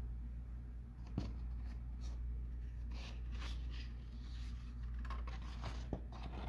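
Paper sheets rustling and sliding as a large drawing is taken down and another is put in its place, with two sharp taps, over a steady low hum.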